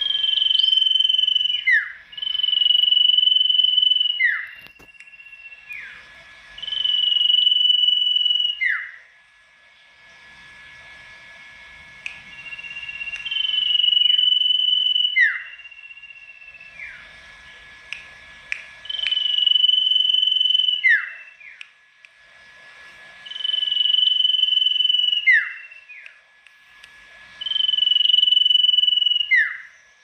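Sirtu songbird singing loudly: about seven phrases with pauses between, each a held high whistle ending in a quick downward-sliding note.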